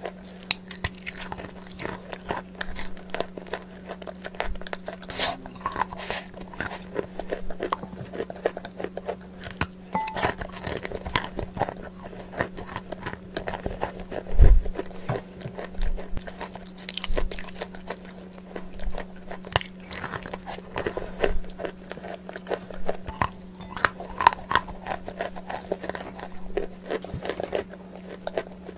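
Close-miked crunchy eating: irregular crisp crunches and bites with chewing, over a steady low hum, with one heavier thump about halfway through.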